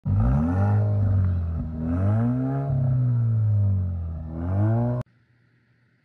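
Car engine revving, its pitch climbing and falling a few times, then cutting off suddenly about five seconds in.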